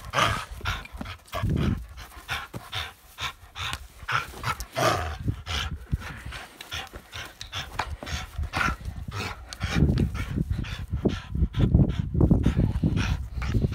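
A dog panting and puffing as it tugs on a rubber ring toy, in irregular bursts that grow louder from about ten seconds in.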